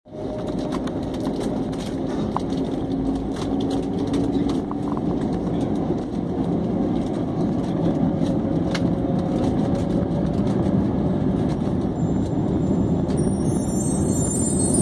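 Cabin noise inside an Airbus A320-family airliner taxiing: a steady low rumble of the jet engines and the wheels rolling over the taxiway, with a faint hum and light rattles. Near the end, faint high music notes come in.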